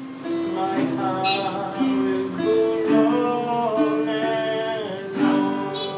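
A man singing a slow melody in held notes while strumming an acoustic guitar.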